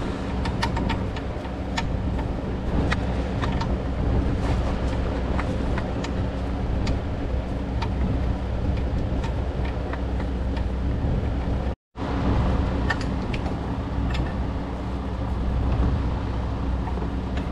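Light metallic clicks and taps of hand tools working on the turbocharger and exhaust manifold hardware, scattered and irregular, over a steady low mechanical hum. The sound cuts out briefly about twelve seconds in.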